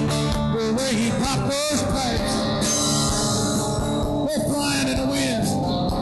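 Live band playing a rock song with acoustic guitar, electric bass and drums. A lead melody bends and slides in pitch over the steady accompaniment, about a second in and again near the end.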